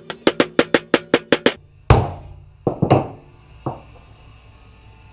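Hammer driving a bearing onto a transfer-case counter gear through a metal driver. A quick run of about nine light metallic taps, then four heavier blows spaced out, each ringing briefly.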